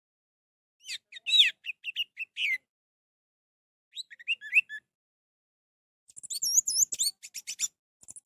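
Orange-headed thrush singing: three short phrases of quick, varied whistled notes with pauses between them, the last one higher and faster with repeated sliding notes.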